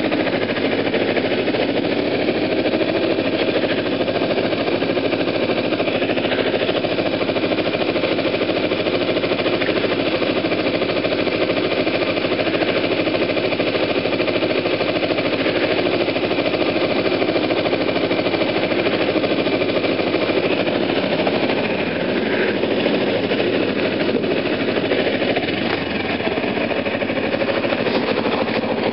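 Motorcycle engine idling steadily with a fast, even pulsing beat.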